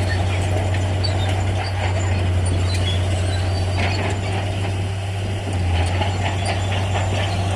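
Heavy Shantui bulldozer's diesel engine running under load with a steady low drone, slightly louder from about two thirds in, with scattered clanks and rattles from the machine at work.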